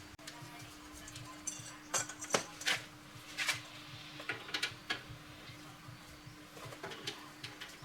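Scattered light metallic clinks and clicks, a dozen or so spread irregularly, as tools and small metal parts are handled, over a faint steady hum.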